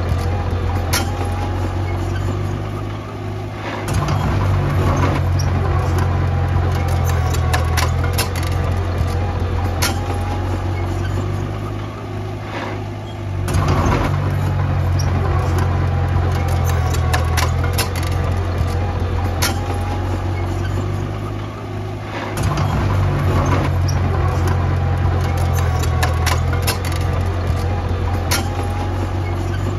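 Diesel engine of heavy earth-moving machinery running steadily, growing louder under load about every nine seconds (near 4, 13 and 22 seconds in). Scattered sharp metallic clanks run over it.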